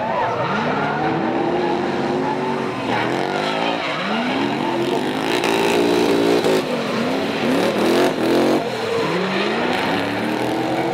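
Two drift cars in tandem, one a BMW E30 with an E39 M5's V8 engine, revving hard: the engine note climbs and drops again and again as the drivers work the throttle through the slide, over the hiss of skidding tyres.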